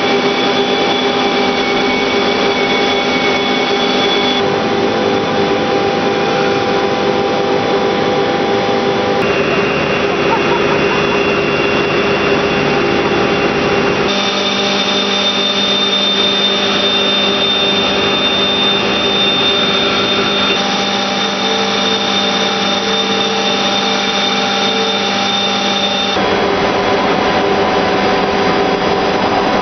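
Steady industrial machinery noise from liquefied natural gas plant equipment: a loud, even hiss and hum with several steady tones, its pitch mix changing abruptly every few seconds.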